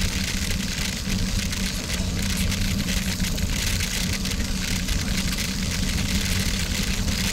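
Steady wind noise on a bike-mounted camera's microphone, with bicycle tyres rolling fast over a loose gravel road at about 20 mph.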